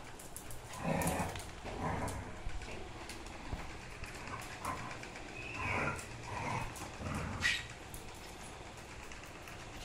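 A dog vocalizing softly in short bursts, several times.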